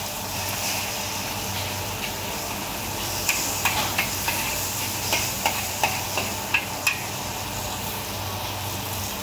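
Char koay teow noodles and duck egg sizzling steadily in a hot wok, with a metal spatula scraping and knocking against the wok several times between about three and seven seconds in.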